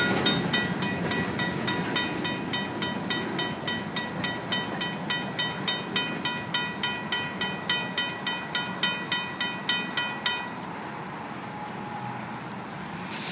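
RACO mechanical crossing bell ringing steadily, about three to four strikes a second, over the rumble of a freight train's hopper cars rolling past. The bell cuts off abruptly about ten seconds in, leaving only the quieter noise of the departing train.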